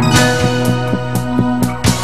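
Live band playing the instrumental introduction to a Bengali song: sustained keyboard and guitar notes over a steady beat.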